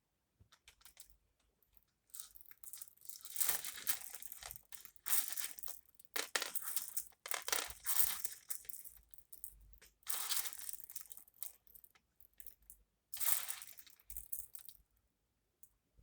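A handful of beads being stirred and rattled together in about six short bursts, a dense rustling clatter with pauses between.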